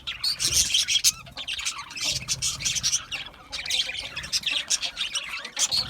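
A flock of budgerigars chattering, with many rapid overlapping chirps and squawks.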